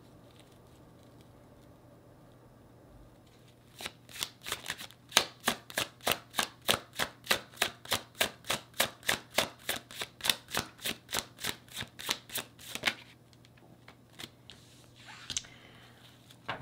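A tarot deck being shuffled by hand: starting about four seconds in, a quick, even run of card slaps, about three or four a second, lasting some nine seconds. A short, softer rustle of cards follows near the end.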